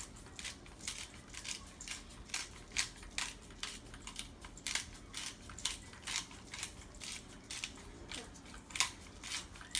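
Hand pepper grinder being twisted, grinding fresh black peppercorns in a steady run of short, gritty crunches, about two or three a second.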